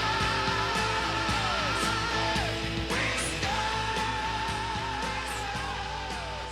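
Rock music played from a vinyl record through speakers, with a steady drum beat and long held notes that waver in pitch, slowly fading out.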